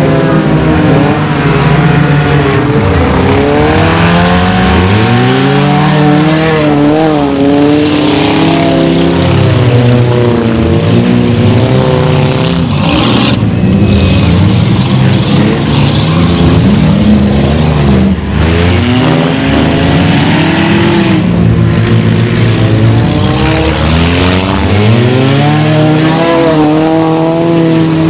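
Several enduro race cars' engines running at once on a dirt track, their pitches rising and falling and overlapping as the cars accelerate, lift off and pass.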